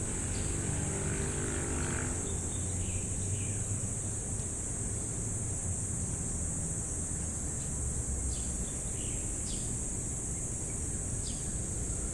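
Crickets trilling in a steady, unbroken high-pitched chorus, with a few short bird chirps scattered through, over a low rumble; a brief low hum sounds in the first two seconds.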